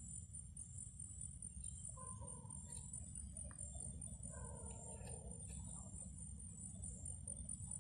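A faint chorus of night insects trilling steadily in fast, even high pulses, with a few short, lower calls from another animal about two seconds in and again around four to five seconds in.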